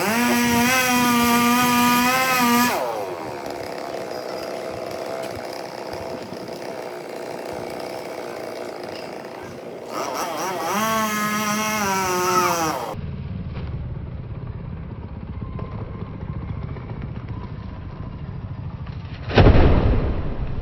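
Two-stroke chainsaw revved up and held at high speed twice, dropping back to a lower running note in between. After a change in the sound partway through, a steady rumble follows, then one loud thump near the end.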